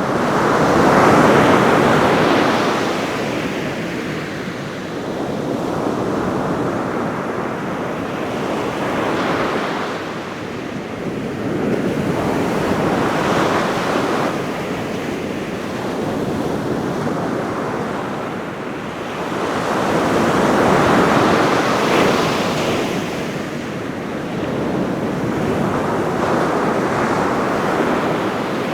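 Ocean surf breaking on a beach, waves rising and falling in overlapping swells every few seconds, blending into a steady rushing noise, with some wind on the microphone.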